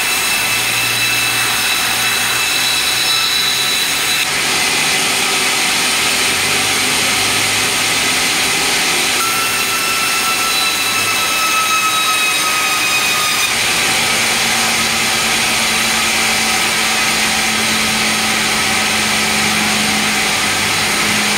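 Sawmill bench rip saw running and cutting meranti planks, a loud steady machine noise. A high whine sags slightly in pitch twice: near the start, and again about midway. A low hum joins in during the second half.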